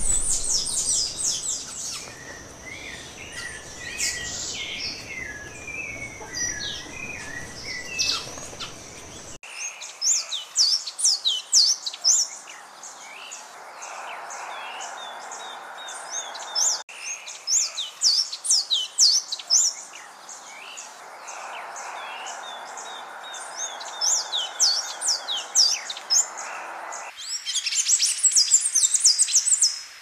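Wild birds calling and singing: many quick, high chirps and short trills, at times with a steady hiss behind them. The mix of birds and background changes abruptly a few times, with a dense run of high trills near the end.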